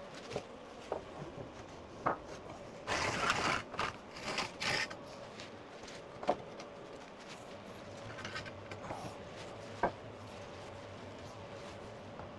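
Lengths of softwood stud timber being handled and laid on a concrete floor: a few sharp wooden knocks, with brief scraping and shuffling about three to five seconds in. A faint steady hum runs underneath.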